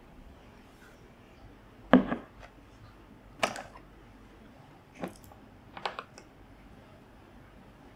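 Four sharp knocks and clinks from handling a glass jar of chocolate spread and a table knife on a wooden table: the first, about two seconds in, is the loudest and deepest; the last two come as the knife dips into the jar.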